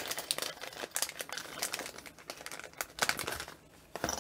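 Small plastic packet crinkling and rustling as it is handled, in a rapid run of crackles that thins out near the end.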